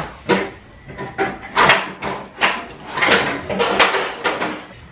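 Rummaging through a toolbox for a wrench of the right size: an irregular string of clanks, rattles and scrapes as tools are shifted about and knocked together.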